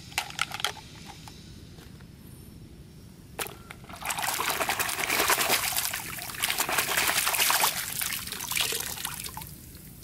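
Toy dump truck being swished and scrubbed by hand in shallow water: splashing and sloshing from about four seconds in until near the end. A few light clicks at the start as the plastic toys are handled.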